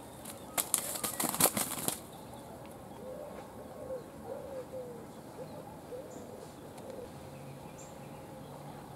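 A pigeon tangled in fishing line beats its wings against the ground in a rapid burst of flapping for about a second and a half near the start. A few short, low bird calls follow.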